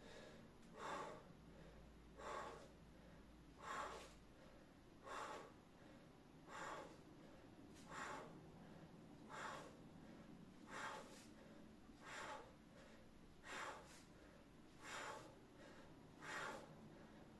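A man's sharp, breathy exhales through pursed lips, about one every second and a half, one for each pull of a set of bent-over dumbbell rows.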